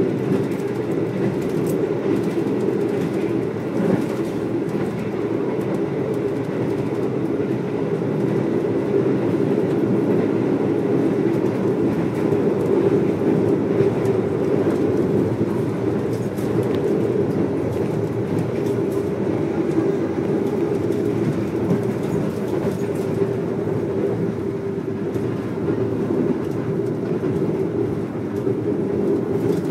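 Passenger train running at speed, heard from inside the carriage: a steady rumble of wheels and coach, with faint clicks now and then.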